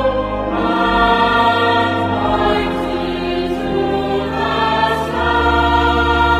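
Slow choral music with long held chords that shift every second or so, over a steady low bass.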